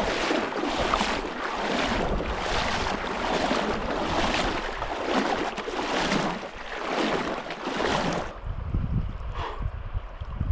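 Feet wading through a shallow, stony river, splashing with each stride about once a second. About eight seconds in the splashing stops and a quieter wash of water remains.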